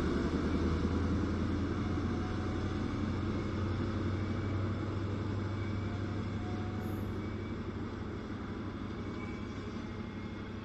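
Diesel High Speed Train receding: the steady low drone of its power car engine and the rumble of wheels on rail slowly fade as it draws away.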